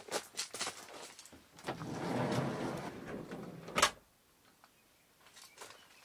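Slippered footsteps crunching on gravel, then a Honda N-VAN's sliding side door rolling shut for about two seconds and closing with one loud thud about four seconds in.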